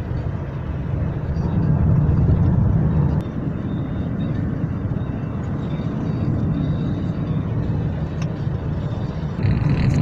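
Car driving in strong gusty wind, heard from inside the cabin: a steady low rumble of road and wind noise, swelling for a second or so about two seconds in.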